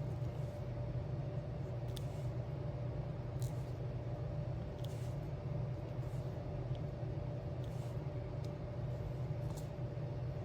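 A steady low hum, with faint short clicks and taps every second or so, typical of a diamond painting pen picking up and pressing small resin gems onto a sticker sheet.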